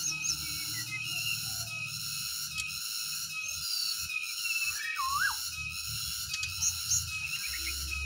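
Black-naped oriole giving short fluty whistles, the clearest a looping whistle about five seconds in, with a few brief high chirps, over a steady high-pitched buzz.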